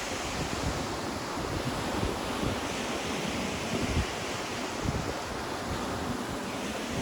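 Ocean waves breaking and washing on the shore in a steady surf wash. Wind buffets the microphone in a few brief low gusts.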